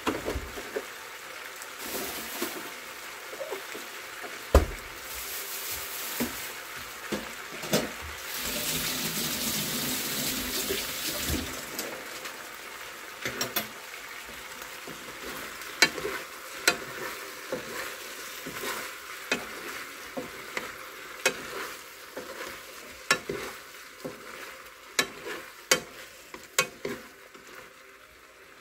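Blood sausage and cabbage stir-fry sizzling in a frying pan, a steady hiss that grows louder for a few seconds about a third of the way in. In the second half, a spoon and chopsticks click and scrape against the pan as the food is stirred.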